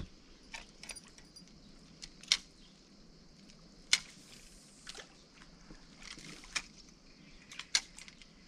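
Scattered sharp clicks and light metallic clinks, irregularly spaced a second or so apart, from spinning rods, reels and tackle being handled on a small boat. The sharpest click comes about four seconds in.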